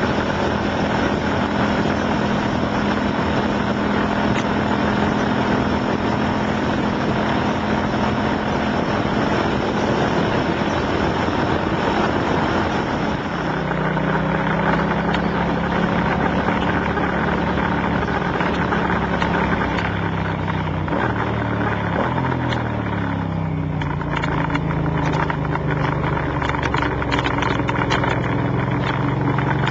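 Shop machine running with a steady mechanical hum made of several held tones. The note drops about halfway through and wavers up and down a little later, with scattered light clicks near the end.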